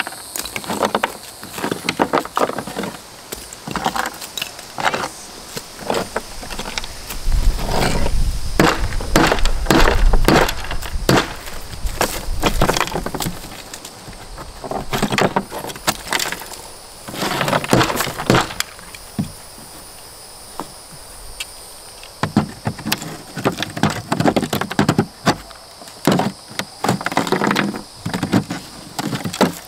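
Dried mortar being broken and picked out of the ribbed underside of a shower base: irregular knocks, crunches and the clatter of chunks, coming in bursts with short lulls.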